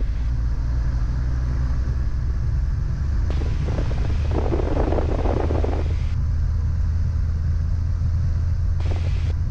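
Continental IO-550-B flat-six engine and its Hartzell Scimitar propeller running steadily at 1700 rpm for the pre-takeoff run-up, heard as a low drone inside the Bonanza's cockpit. A short rough noise rises over it about four to six seconds in.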